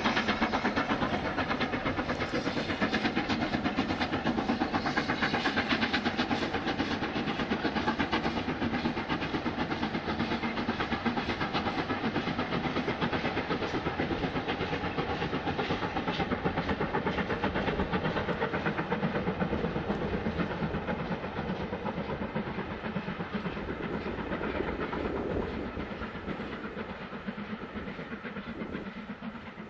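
Steam locomotive hauling a train of coaches, running steadily with a dense rumble and rapid clatter, then fading over the last several seconds as it moves away.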